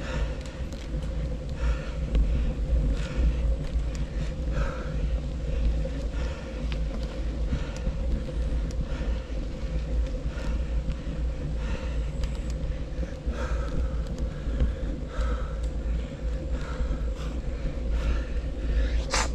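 Mountain bike riding over rough ground, picked up by a GoPro 11 Black action camera: steady low wind noise on the microphone under tyre noise, with scattered clicks and rattles from the bike and a sharper click near the end.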